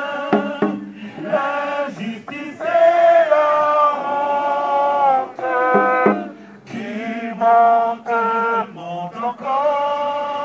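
A crowd of men and women singing together, drawing out long notes in phrases with short breaks between them.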